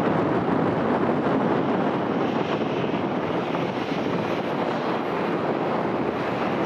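Boeing 737-800's CFM56 jet engines running at taxi idle as the airliner rolls past: a steady, even rush of engine noise.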